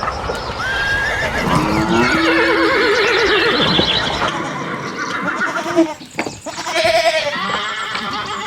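Farm animal calls, among them a horse whinnying with a quavering pitch, with a sharp click about six seconds in.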